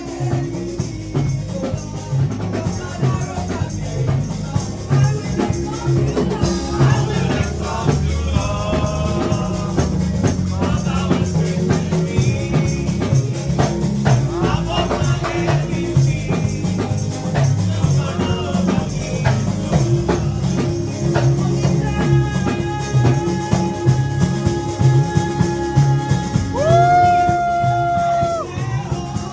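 Live praise and worship music with a steady beat, shaker or tambourine percussion and singing, with a long held note near the end.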